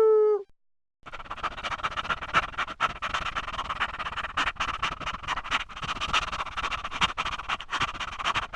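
A dog's howl slides down in pitch and cuts off. After about a second of silence, a dense chorus of rapid, chattering animal calls starts and runs on.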